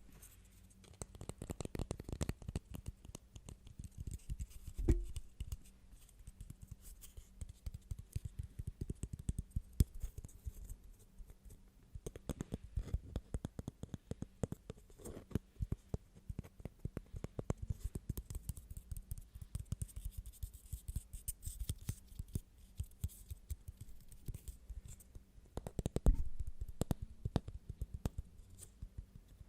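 Fast, irregular tapping on objects, many light taps in quick succession, with a louder knock about five seconds in and another near the end.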